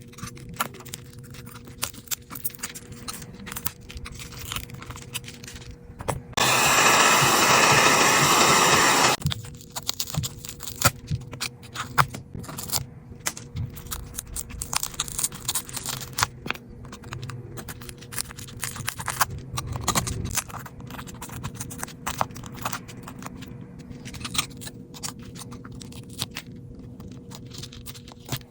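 Small repair tools clicking, tapping and scraping on an iPhone's parts, irregular and light, over a steady faint hum. About six seconds in, a loud rushing hiss lasts about three seconds and cuts off.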